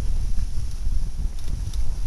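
Wind buffeting the microphone on a sailboat under way, an uneven low rumble that rises and falls in gusts.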